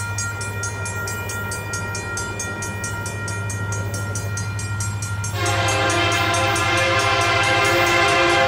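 Horn of an approaching locomotive sounding one long multi-note blast, starting about five seconds in and cutting off near the end, over a steady low rumble.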